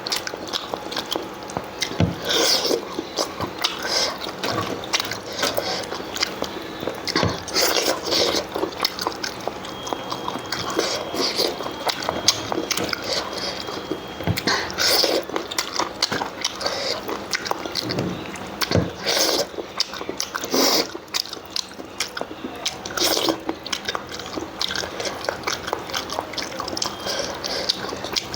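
Close-miked wet chewing and smacking of someone eating goat lung curry with rice: irregular clicks and wet mouth sounds, a few a second.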